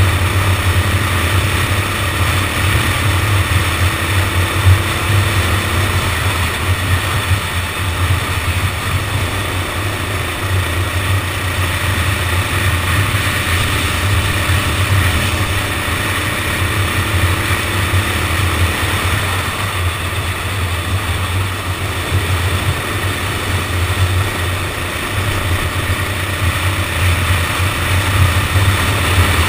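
Go-kart engine running as the kart is driven around the track, picked up by a kart-mounted onboard camera along with steady noise from driving.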